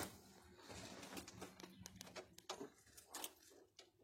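Faint, scattered light clicks and rustles of a bolt and lock washer being handled and fitted by hand, with a faint low hum during the first couple of seconds.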